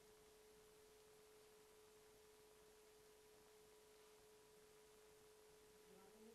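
Near silence: faint steady hiss with a constant low-level tone, like electrical hum from the recording chain.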